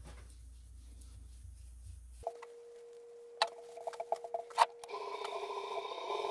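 Faint cloth rubbing at first. About two seconds in, a steady electric whine from the wood lathe's motor drive comes on, followed by a few sharp clicks. Near the end the lathe motor starts up, its hum fuller and growing louder as the burl egg begins to spin.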